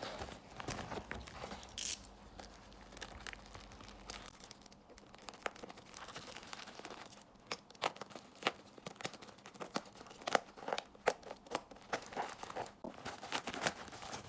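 Card packaging being torn open and crinkled by hand, a run of short crackles and rustles that grows busier about halfway through.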